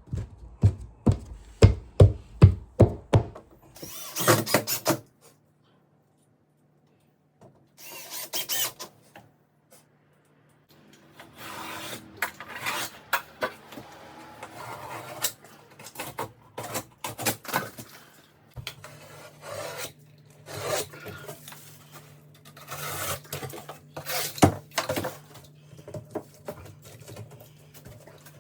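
Hand work on plasterboard and old wall: a quick run of knocks, about three or four a second, then a sharp burst of noise, and after a short gap repeated rasping and scraping strokes over a low steady hum.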